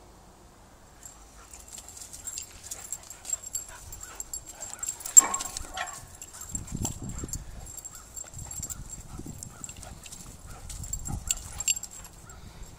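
Two dogs play-fighting, with one loud, sharp dog cry about five seconds in amid scuffling and rustling.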